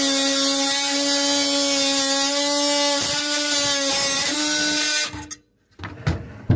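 RIDGID 18V brushless cordless oscillating multi-tool running at a steady high whine, its pitch dipping briefly a couple of times. It stops suddenly about five seconds in, followed by a few knocks.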